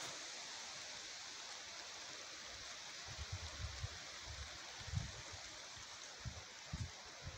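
Steady, faint rushing hiss of outdoor ambience among trees. From about three seconds in, irregular low muffled bumps sound on the microphone, the loudest near five seconds.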